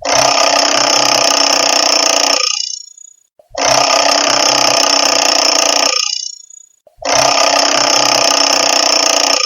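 Classic mechanical analog alarm clock bell ringing loudly in three bursts of about two and a half seconds, each stopping abruptly, with about a second's pause between them.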